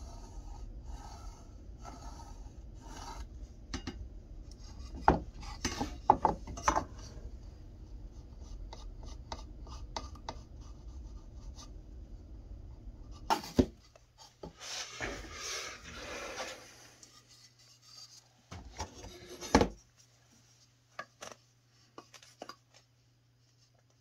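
Pencil scratching along a wooden 2x4 board as lines are drawn against a steel square, in short strokes and one longer stretch, with several sharp knocks of the square and tools on the wood. A low steady hum runs underneath and drops to a fainter hum about halfway through.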